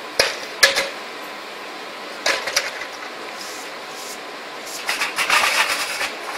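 Sharp metallic knocks and clatter over steady outdoor background noise: two hard knocks in the first second, a short clatter about two seconds later, and a longer burst of rapid rattling near the end.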